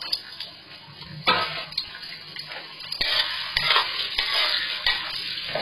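Diced carrots sizzling in hot oil and ghee in a steel kadai, stirred with a metal spatula that scrapes and knocks against the pan. The sizzle jumps up with a sharp knock about a second in and grows louder again about halfway through.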